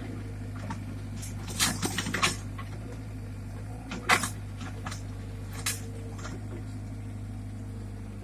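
Caterpillar 305.5E mini excavator's diesel engine running steadily, with a quick cluster of sharp knocks about a second and a half in and a single loud knock about four seconds in, followed by a few lighter ones.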